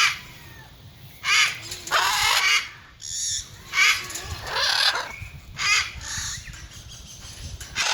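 Macaws squawking: a run of about six or seven harsh, raspy calls at irregular intervals.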